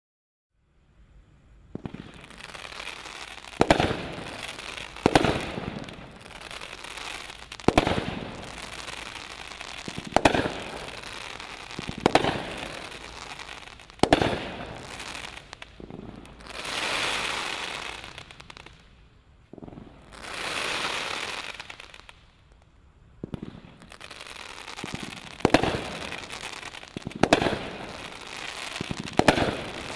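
Brothers Sound Doctrine 32-shot 500 g firework cake firing. Shots go off one after another, a sharp report every second or two, with crackling between them. Near the middle there are two longer hisses that swell and fade.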